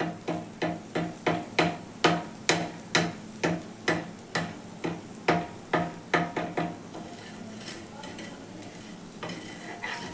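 A spoon stirring and knocking borax (suhaga) in a pan on full heat as it is dry-roasted and puffs up white: quick, sharp strikes about three a second, easing to a lighter scraping about seven seconds in.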